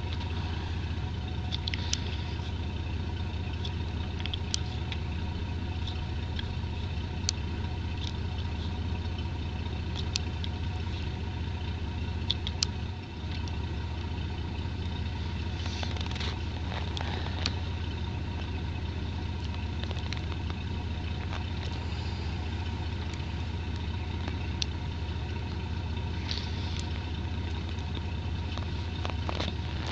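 An engine idling steadily, with faint scattered clicks and ticks over it.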